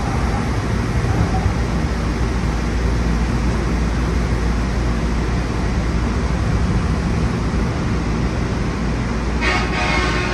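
LA Metro Gold Line light rail train heard from inside the front cab: a steady rumble of steel wheels on rail and running noise as it slows into a station. A brief high-pitched tone sounds near the end.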